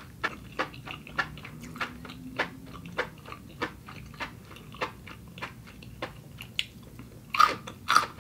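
Close-miked chewing of cooked enoki mushrooms: a steady run of wet mouth clicks, roughly two a second, with a few louder ones near the end.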